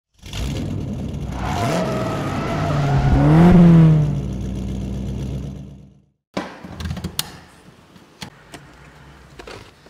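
Car engine running and revving, its pitch rising and falling to a peak about halfway through, then cutting off suddenly about six seconds in. A few faint clicks and knocks follow.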